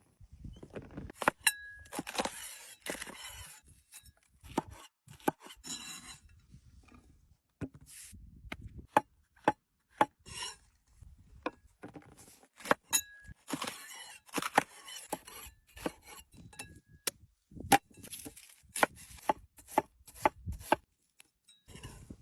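Food-preparation handling: a long irregular series of sharp knocks and clinks, like a knife or utensils against a board and dishes, with several stretches of rustling and scraping in between.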